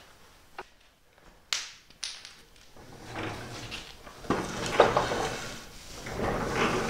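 A few sharp clicks as the foot-operated caster tabs of a mobile base are pressed down, then, from about three seconds in, the jointer stand rolling on its casters across the concrete floor, louder near the middle.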